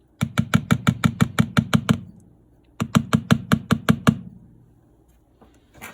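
Utensil stirring mashed potatoes in a plastic TV dinner tray, knocking against the tray in quick strokes of about seven a second. Two runs with a short pause between, then a single softer knock near the end.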